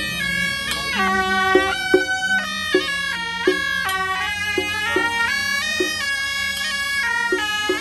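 Suona, the Chinese double-reed horn, playing a loud, reedy melody that steps between held notes over a steady low drone, with a regular beat underneath.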